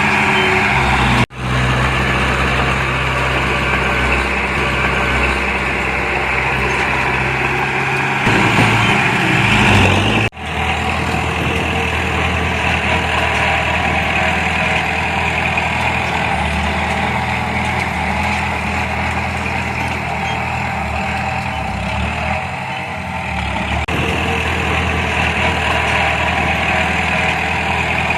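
Heavy earthmoving machine's diesel engine running steadily, revving up shortly before a brief break about ten seconds in. Another brief break comes about a second in.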